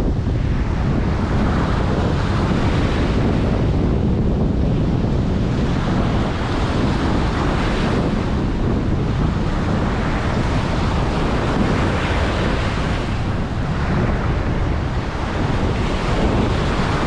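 Ocean surf breaking and washing up a beach, swelling and easing every several seconds, with wind rumbling on the microphone.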